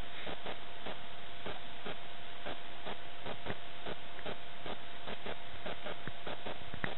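Steady hiss and a constant thin whine from a small body-worn camera, with soft knocks about twice a second from the wearer's walking steps jolting it.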